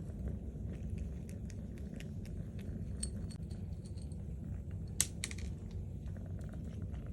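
Kitten purring, a steady low rumble, with scattered small clicks over it and one sharp click about five seconds in.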